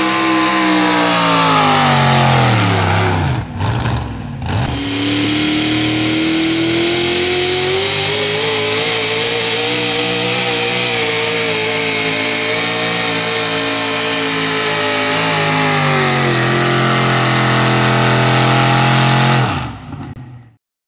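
Engines of 4wd Modified pulling trucks running hard at high revs while dragging a weight sled. The first engine's pitch falls steadily over about three seconds. After a brief break, a second truck's engine holds a high, fairly steady pitch, drops a step near the end, then cuts off abruptly.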